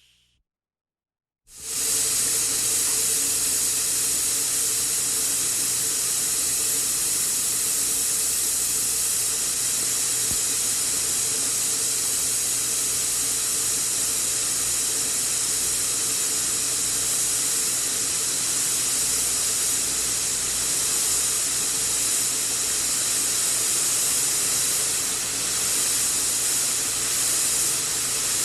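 Pressurised air escaping in a loud, steady hiss. It starts abruptly after about a second and a half of silence, with a faint steady hum underneath.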